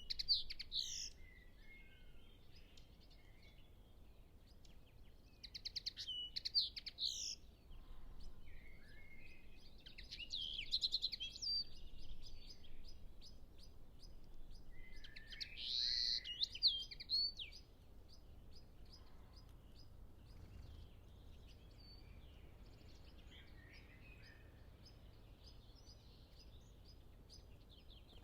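Pied flycatcher singing: four short, bright song phrases a few seconds apart, then only faint chirps from other birds in the distance for the last third.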